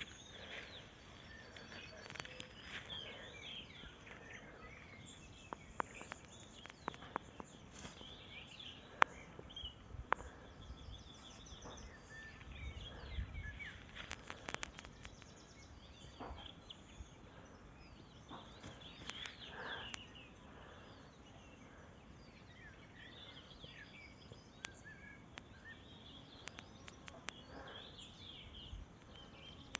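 Rural outdoor ambience with birds chirping and calling throughout, and a few sharp clicks or taps around the middle.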